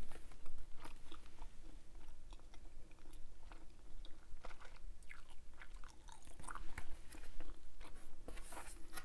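Close-miked bubble gum chewing: irregular wet clicks and smacks of Hubba Bubba gum being worked in the mouth.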